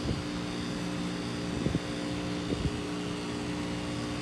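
Goodman heat pump outdoor unit running: a steady compressor and fan hum with a few fixed tones, with a few brief soft knocks.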